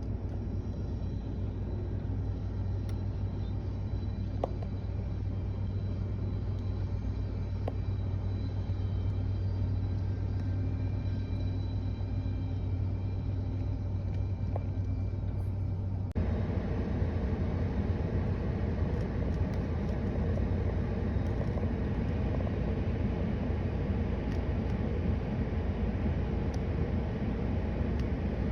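A vehicle engine running with a steady low hum, with some faint higher noise over it. About halfway through the sound changes abruptly to a louder, rougher rumble.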